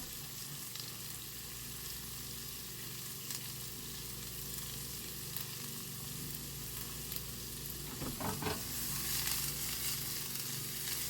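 Onions frying and sizzling in a hot pan on the stove, a steady hiss that gets a little busier about eight seconds in.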